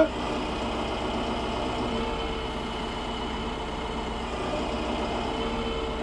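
Compact tractor's diesel engine running steadily with an even hum while the loader grapple works a log.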